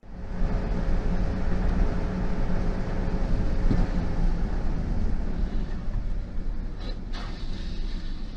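A car's road and engine noise heard from inside the cabin at highway speed, a steady low rumble with road hiss. There are two short knocks about seven seconds in.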